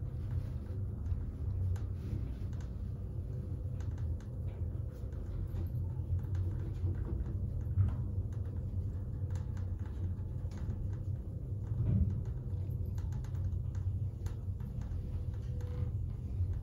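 Volker Radke roped hydraulic elevator car running: a steady low hum and rumble, with scattered light rattles and clicks from the car and its doors, and a couple of louder knocks.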